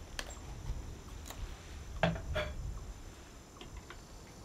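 A few light clicks and knocks, the loudest a pair of clinks about two seconds in, over a low steady rumble.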